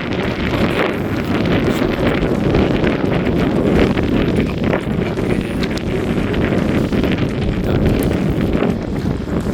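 Wind buffeting an unshielded phone microphone: a loud, steady low rumble.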